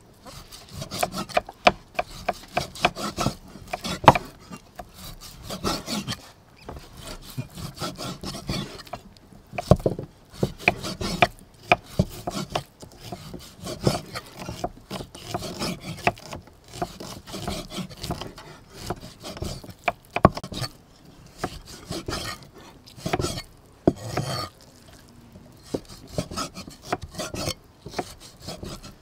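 Knife cutting raw meat on a wooden chopping block: many sharp, irregular knocks of the blade on the wood, with the scrape of the blade drawing through the flesh between them. The knocks thin out for a few seconds near the end.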